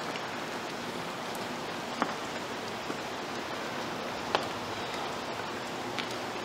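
A steady hiss, even and rain-like, with a few sharp ticks scattered through it, about four in all.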